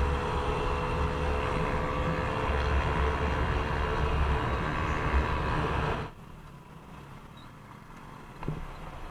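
Honda Click 150 scooter underway at night: its single-cylinder engine running steadily under wind rush on the mount's microphone. About six seconds in the sound drops off suddenly to a much quieter engine hum at low speed, with a single knock near the end.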